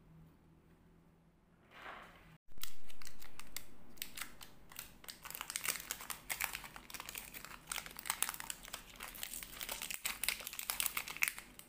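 Clear plastic bag and 3M double-sided tape crinkling as they are handled close to the microphone. A loud rustle starts about two and a half seconds in and fades, then dense crackling made of many small clicks follows.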